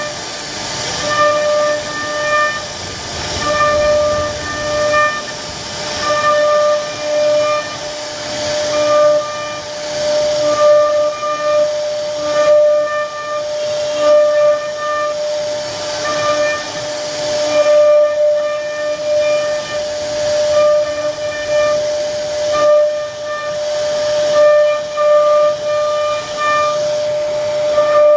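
CNC router spindle whining at one steady high pitch while its carving bit cuts a relief into a wooden panel, over a constant hiss of cutting. The whine keeps dropping out and coming back every second or so as the bit works through the cuts.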